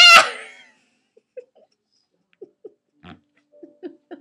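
A loud shout fades out in the first half-second. It is followed by a string of small, short, squeaky hiccups voiced for the puppet, about half a dozen, irregularly spaced.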